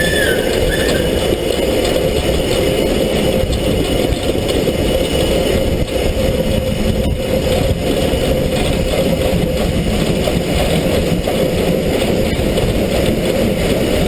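Steam locomotive on the move, heard from up against its side: a loud, steady running noise of the engine and its wheels on the rails. Its whistle falls away in the first half-second, with one short toot just after.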